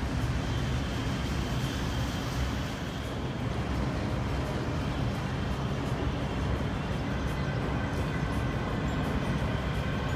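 River boat's motor running steadily, a low rumble under a wash of wind and water noise.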